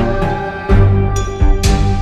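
Background music: sustained pitched notes with strong recurring beats.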